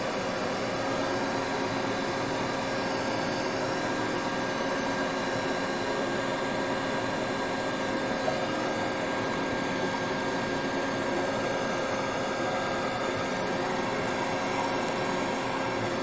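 Custom-made fume extractor's fan running steadily: a constant rush of moving air with a faint, unchanging hum.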